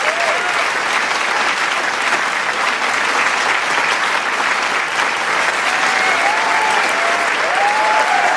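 Large studio crowd applauding steadily, a dense patter of many hands clapping, with scattered cheers and whoops rising again near the end.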